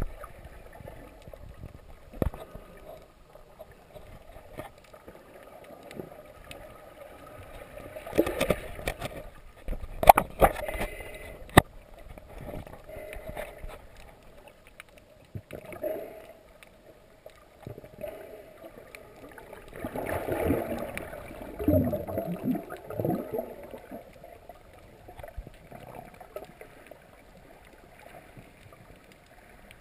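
Underwater ambience picked up by an action camera in its waterproof housing while snorkeling: a low, muffled water hush with scattered sharp clicks, and louder rushing stretches about eight seconds in and again from about twenty to twenty-three seconds in.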